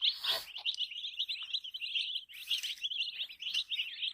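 A group of baby chicken chicks chirping, many high peeps overlapping without a break. A brief burst of noise comes right at the start and another about halfway through.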